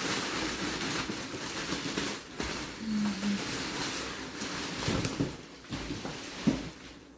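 Plastic wrapping crinkling and rustling as it is pulled off a large cardboard box, fading toward the end, with a couple of knocks near the end.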